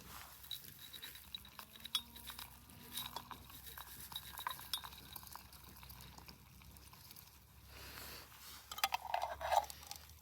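Camp tableware being handled: scattered light clinks and taps, with a louder clatter about nine seconds in.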